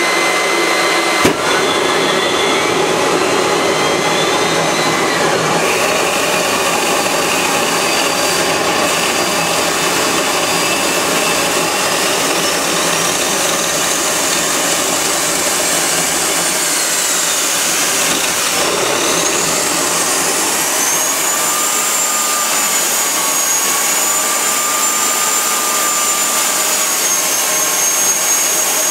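Homemade turbocharger gas turbine running on kerosene: a loud, steady rush of air and combustion with a high whine from the spinning turbocharger shaft. A click comes about a second in, and the whine then climbs. Its pitch dips a little past halfway, then rises higher and holds.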